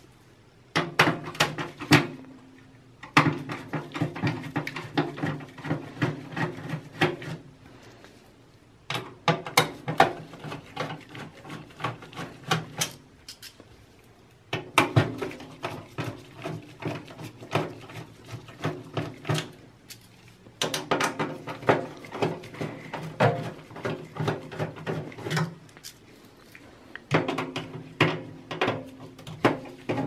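Phillips screwdriver backing out motherboard screws from a server's steel chassis: about six bursts of rapid clicking and scraping, each a few seconds long, with short pauses between screws.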